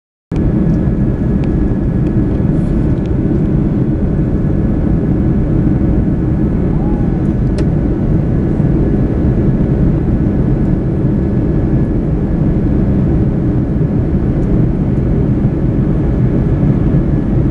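Airbus A330's jet engines heard from inside the passenger cabin during the climb after takeoff: a loud, steady low noise with a faint steady whine above it. The sound cuts in abruptly a moment in.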